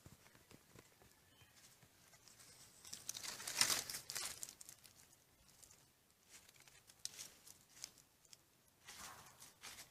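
Crinkling, rustling noise in a few short bursts, the loudest lasting about a second and a half about three seconds in, with scattered small clicks.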